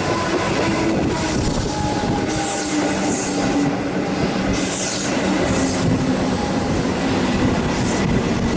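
A Comeng electric suburban train passes close by at speed, with a steady rumble of steel wheels on the rails and a steady hum. A few short hissing bursts come over it, about two and a half, four and a half and eight seconds in.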